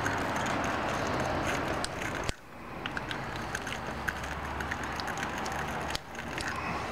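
Battery terminal cleaning brush scrubbing the inside of a dull, oxidised battery cable clamp: a steady scratchy scraping with small clicks. It drops off abruptly about two seconds in and then carries on more quietly.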